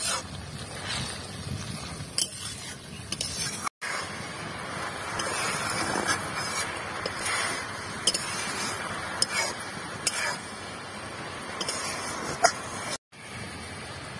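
Star fruit slices sizzling in hot mustard oil in a karahi, with a metal spatula now and then clicking and scraping against the pan. The sizzle cuts out briefly twice.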